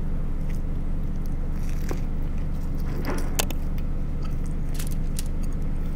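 Close-up eating sounds: a bite into an In-N-Out burger, then chewing, heard as a few faint wet clicks over a steady low hum.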